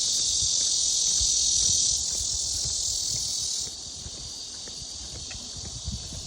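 Cicadas singing in chorus: a dense, steady high-pitched buzz that drops noticeably in level about two-thirds of the way through.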